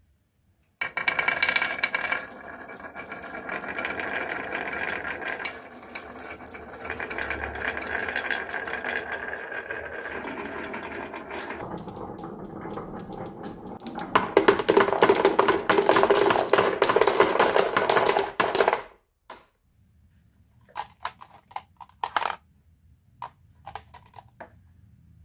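Marbles rolling and clattering down a wooden marble run, with a steady rattle of many small clicks. A louder, denser clatter starts about two-thirds of the way in and cuts off suddenly, leaving a few scattered clicks.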